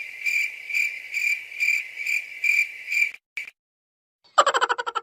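Cricket-chirping sound effect: a high steady trill pulsing about twice a second that cuts off suddenly about three seconds in. A little after four seconds a loud, rapid, buzzy fart sound begins.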